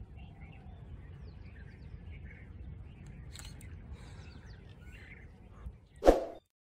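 Faint, scattered bird chirps over a low, steady outdoor rumble. About six seconds in, a short, loud whoosh sound effect.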